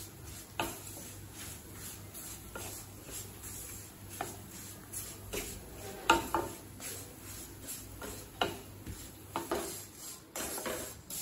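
A spatula scrapes and clacks against a kadai as bread cubes are stirred while roasting in ghee. The knocks come irregularly, a second or two apart.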